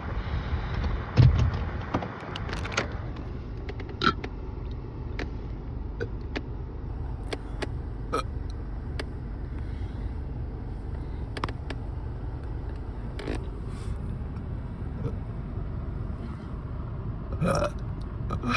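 A girl's deliberate burp, loud and low, about a second in, over the steady road rumble inside a moving car. Short light clicks are scattered through it.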